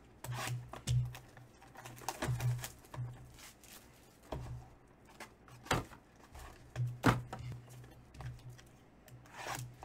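Trading cards being handled and flipped on a tabletop: soft rustling broken by several sharp clicks and snaps of card stock.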